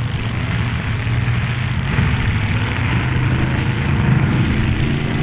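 Demolition derby car engines running, a steady low rumble with hiss and no crashes.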